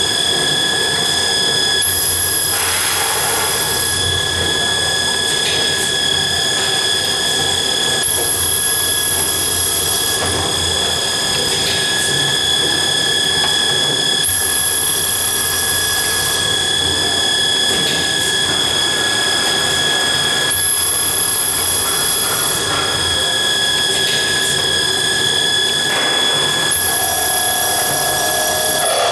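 CMA rapid coordinate drilling machine running a drilling cycle under coolant, with a steady high-pitched whine. A higher hiss comes in for about two seconds roughly every six seconds, each time the bit cuts the next hole in the bar.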